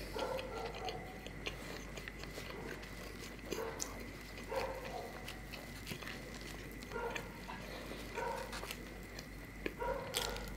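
Close-miked eating of dosa by hand: wet chewing and lip smacks with small crisp clicks, in short bursts about every second.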